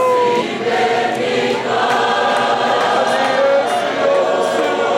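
Church choir singing, with several voices holding long notes together.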